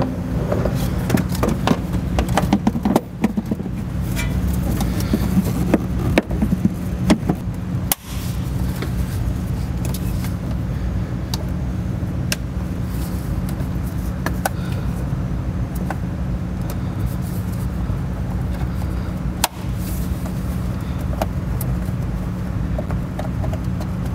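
A steady low mechanical hum, like a motor running, throughout, with sharp plastic clicks and knocks in the first several seconds as the airbox cover and its clips are snapped back on; scattered single clicks follow later.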